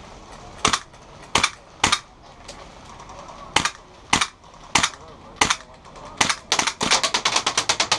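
Gas blowback airsoft submachine gun, a KWA Skorpion, firing about nine single shots at uneven gaps, then a fast burst near the end.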